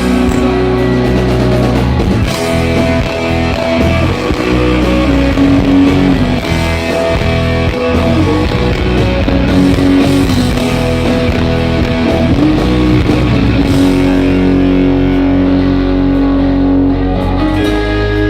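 Rock band playing an instrumental break live, a guitar carrying long held notes that bend in pitch in places, over bass and drums.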